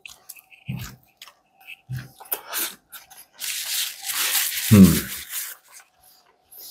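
A man chewing a bite of burger, with small wet mouth clicks and a couple of short low hums. About three and a half seconds in, a paper napkin rubs and rustles loudly against his mouth for about two seconds, with a brief falling 'mm' partway through.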